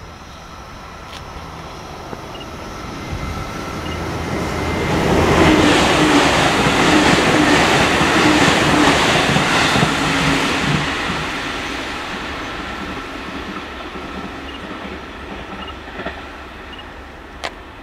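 Electric commuter train passing close by on the line: it swells over a few seconds, holds loud for about five seconds with wheels clicking over the rail joints, then fades away.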